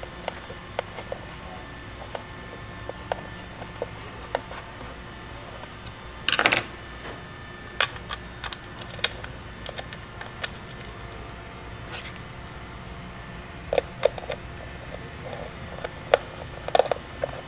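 Scattered light clicks and taps of small metal cleat bolts, washers and a T-handle hex key being handled and set down on a bench, with a short louder clatter about six seconds in.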